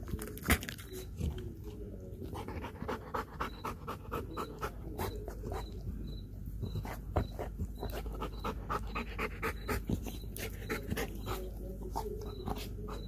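Belgian Malinois panting rapidly, still winded from a hard workout.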